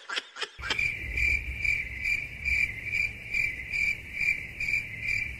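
Cricket chirping: an even, pulsing chirp about twice a second that starts about half a second in, over a low rumble.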